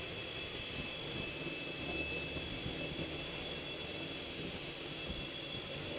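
Steady background hum and hiss with a faint, constant high-pitched whine and no distinct knocks or clicks.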